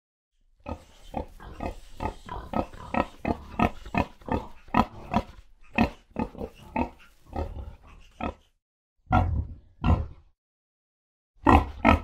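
Pigs grunting: a quick run of short grunts, about three a second, then two louder grunts about nine seconds in and two more near the end.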